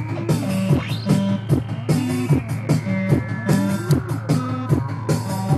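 Electro-punk song playing, with a steady beat of regular hits under pitched notes and a rising glide about a second in.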